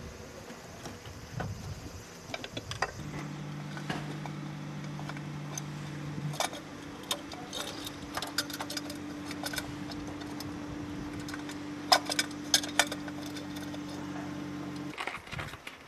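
Scattered light metallic clicks and clinks of a hand working among parts deep in a Nissan Y60 Safari's engine bay, a few of them sharper around two-thirds of the way through. A steady low hum starts about three seconds in and stops shortly before the end.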